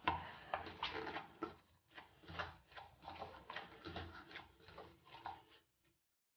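Stiff oiled flour dough kneaded by hand in a bowl: an irregular run of soft presses and slaps with a few dull knocks, stopping shortly before the end.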